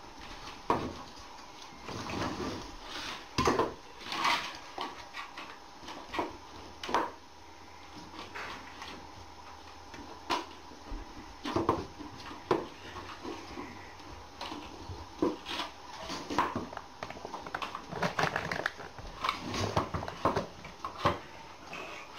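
Metal pet food bowls clinking and clattering irregularly as they are handled and set down on a wooden floor, with dog sounds mixed in.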